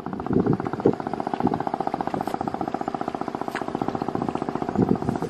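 A small engine running steadily with a fast, even putter, with a few short bits of voice over it.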